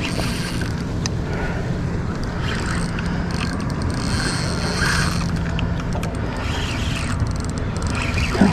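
Steady low rumble of wind and water noise, with a faint steady hum through most of it.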